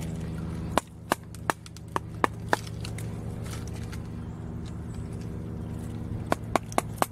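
Sharp wooden knocks of a knife blade being struck into a small branch to split it: six quick knocks in the first few seconds, a pause, then four more in quick succession near the end.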